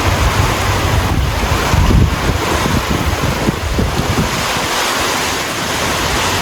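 Strong gusty wind buffeting a phone's built-in microphone: a heavy low rumble of wind noise with a hiss above it, rising and falling with the gusts.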